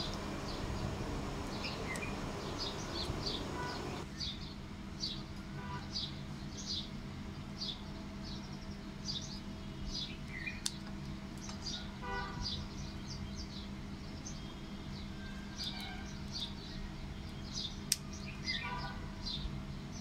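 A small bird chirping over and over in short high chirps, about two a second, over a low steady hum. A few sharp clicks from scissors snipping grape stems.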